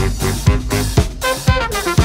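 Instrumental funk from a band of saxophone, trumpet, trombone, guitar, bass, drums and keys. The drum kit keeps a steady beat of about two hits a second over the bass, and held chords come in a little past halfway.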